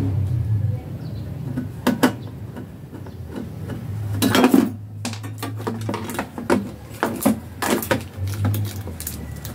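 Metal clicks and clinks of a screwdriver working screws out of a flat-screen TV's sheet-metal chassis and the loosened metal bracket being handled, with a louder clattering scrape about four seconds in.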